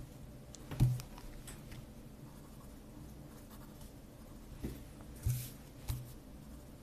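Pen writing on paper, with a few light knocks of the pen and hand against the paper and desk, the loudest about a second in and three more near the end.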